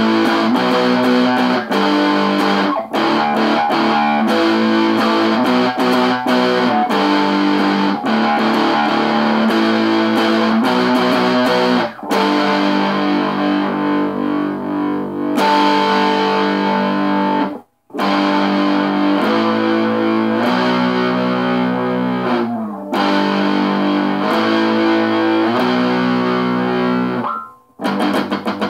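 Distorted electric guitar, a Squier Stratocaster tuned to drop D, strumming ringing power chords that change about every second. The playing stops dead for a moment about two-thirds of the way through, and near the end a chord slides in pitch before a short break.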